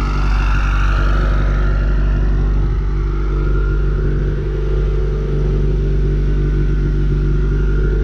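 Subaru flat-four engine idling steadily while warming up, freshly fitted with new spark plugs and oil.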